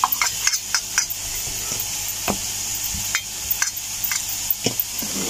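Oil sizzling steadily in a pan on the stove, with many small crackles and pops: masala frying.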